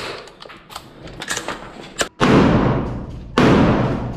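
A few sharp knocks, then two heavy explosive blasts about a second apart, each dying away in a rumble: explosive breaching charges going off.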